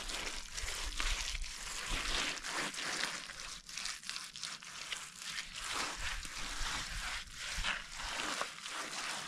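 A bare hand rubbing and scraping wet cow-dung-and-soil plaster over an earthen floor, a gritty rasp repeated in quick strokes.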